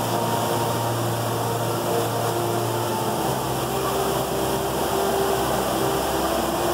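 Steady rushing roar of the Rain Vortex, a tall indoor waterfall pouring through the roof of a glass dome, with a faint low hum that shifts in pitch about three seconds in.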